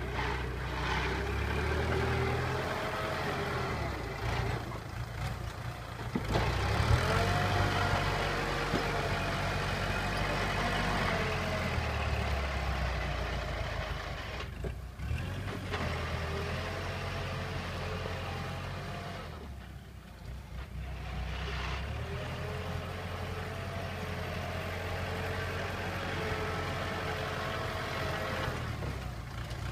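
Kubota M6040SU tractor's diesel engine working under load as the tractor pushes heaped soil with a rear blade. The engine note rises and falls with the throttle and eases off briefly twice around the middle.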